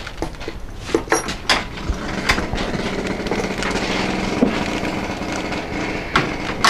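Hands working rice in a plastic basin: scratchy rubbing with scattered light clicks and knocks. A motor hums faintly in the background from about the middle to near the end.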